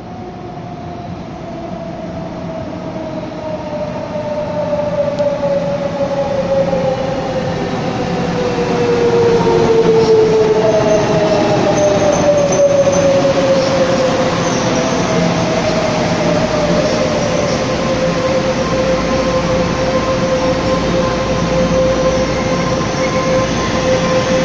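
Taiwan Railway EMU500-series electric commuter train pulling into a station platform. Its running noise grows louder over the first ten seconds or so as it draws near. Several whining tones slide down in pitch as the train slows, settling into one steady tone near the end.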